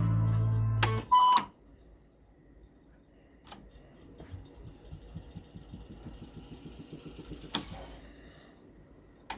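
Guitar music stops about a second in with loud mechanical clunks, likely the controls of an Akai GX-220D reel-to-reel tape deck. Faint irregular ticking and rattling from the transport follows, then another click, and the music starts again near the end.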